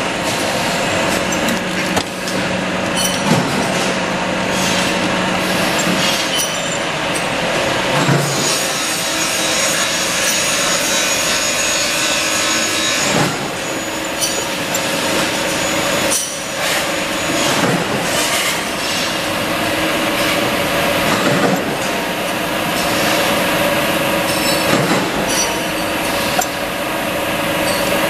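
Bench drill press running and drilling holes in small aluminium knob blanks, a steady machine noise with motor hum, with short knocks of metal parts being handled and set in the jig.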